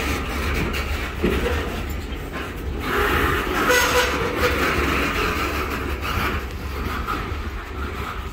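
Boxcars of a freight train rolling past close by, steel wheels running on the rails in a steady noise broken by a few knocks.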